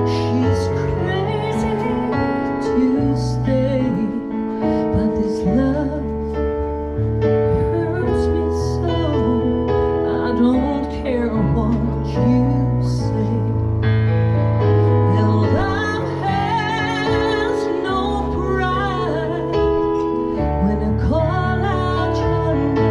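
A woman singing a song live, with keyboard accompaniment holding long low bass notes; her voice wavers with vibrato on the long held notes about two-thirds of the way through.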